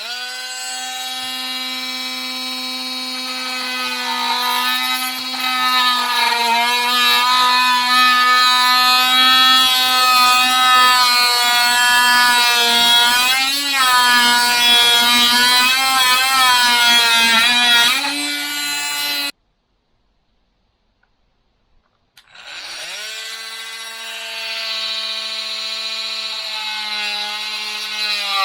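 Makita TM30D cordless oscillating multi-tool running with a steady buzz, getting louder and wavering in pitch as the blade works into the material. It stops suddenly about two-thirds through, then starts again a few seconds later and winds up to speed.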